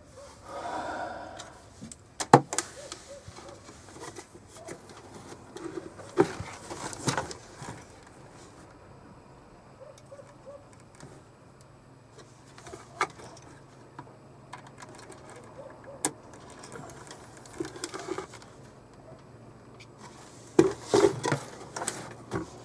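Scattered clicks, taps and rustling of a circuit board and small tools being handled on a workbench, with a faint low hum coming in about halfway through.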